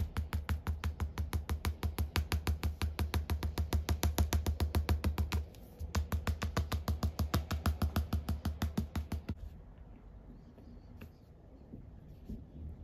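A thin rod tapping rapidly and evenly on a model railway track and its loose ballast, about five taps a second, to settle the grains between the sleepers. The tapping pauses briefly about five seconds in and stops a little after nine seconds, leaving only faint scattered ticks.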